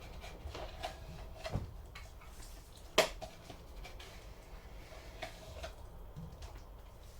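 A few faint ticks and small knocks in a quiet room, with one sharp click about three seconds in that is the loudest sound.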